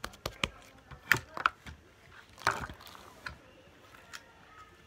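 Bead-filled slime being squeezed and pressed by hand, giving irregular crunchy clicks and squishes, a few louder snaps about a second in and again midway.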